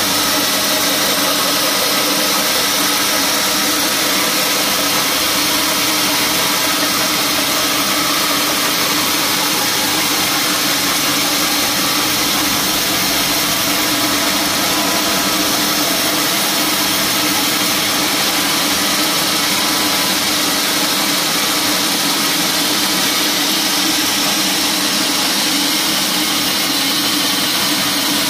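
Band sawmill running steadily, its blade cutting lengthwise through a teak slab: a loud, even hiss over a constant motor hum, with no pauses.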